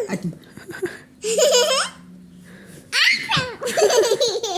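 A young child laughing in bursts, about a second in and again from about three seconds on.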